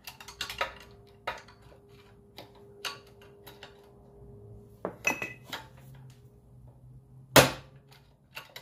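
Screwdriver tip clicking and scraping on the governor's center pin inside the open crankcase of a Predator 212 engine, prying to pop the governor's retaining piece off: a run of light metal taps and clinks, with one sharp, loud strike near the end.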